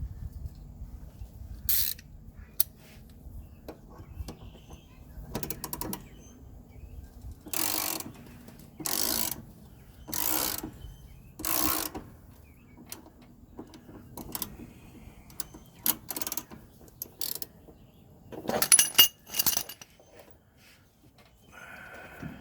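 Hand tools working on steel at a rusted-on mower blade adapter: a run of half-second ratcheting strokes about a second apart through the middle, then a cluster of ringing metal clanks a little before the end. The adapter is rusted fast and is not yet coming off.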